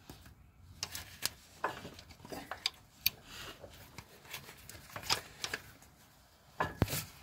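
Socket wrench worked on a diesel engine's crankshaft pulley bolt: a string of irregular metallic clicks and light knocks, the loudest near the end.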